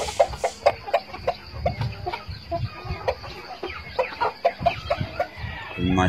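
Silkie bantam chickens clucking, short irregular clucks coming several a second.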